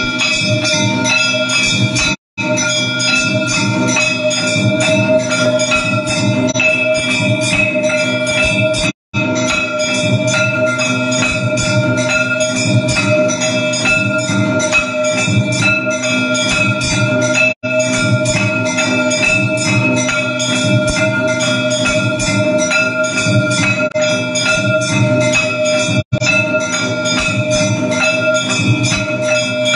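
Temple bells ringing fast and without pause together with rattling percussion, the din of a Hindu aarti. The whole sound cuts out for an instant four times.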